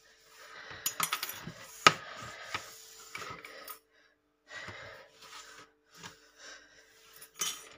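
Handling noise on a kitchen countertop as loose wooden trim pieces and other items are shifted: scraping and rustling with scattered knocks. The sharpest knock comes about two seconds in, and a quick cluster of clicks comes near the end.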